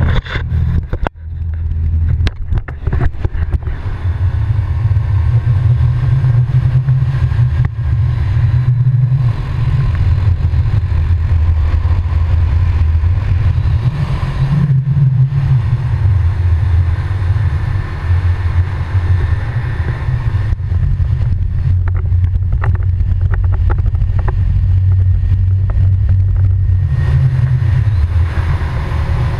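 ATV (quad bike) engine running steadily while riding along a dirt road, with a heavy low wind rumble on the microphone. There are a few knocks and dropouts in the first few seconds.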